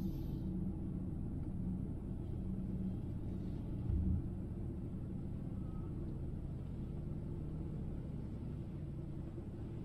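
A car's steady low rumble, with a brief louder swell about four seconds in.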